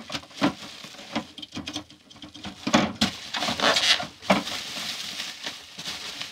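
Bubble wrap being handled and pulled from around a toy in a cardboard box: crinkling and rustling with many small clicks, loudest from about three to four and a half seconds in.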